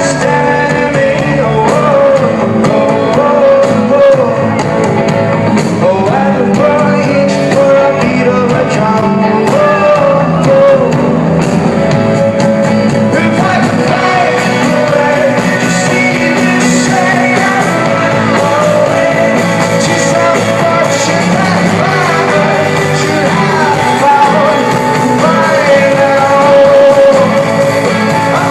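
Rock band playing live, with a lead vocal sung over the band.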